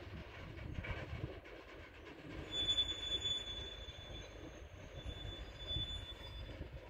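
Freight train wagons rolling with a steady rumble and clatter. A high-pitched wheel squeal comes twice, about two and a half seconds in and again about five seconds in, each lasting a second or so.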